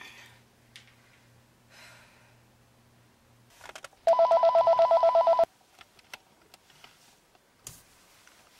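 A mobile phone ringing: a loud, fast electronic warble of two alternating tones, about a second and a half long, starting about four seconds in. Before it, a few faint clicks.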